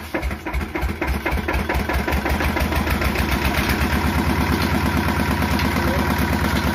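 Small single-cylinder stationary diesel engine of a chaff cutter starting by hand and catching. Its firing beat quickens over the first two seconds, then settles into a steady, fast pulsing run.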